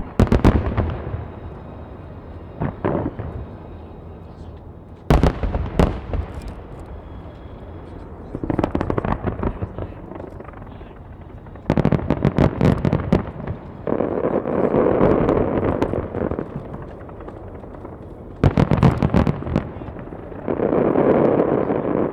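Aerial firework shells bursting in rapid volleys of sharp bangs, a cluster every few seconds, with two longer stretches of a dense, steady rush of noise between the volleys.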